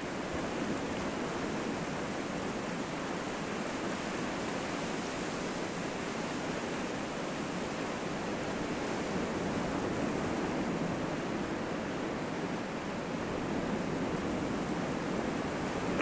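Sea surf breaking on a sandy shore, a steady rushing wash that swells gently now and then.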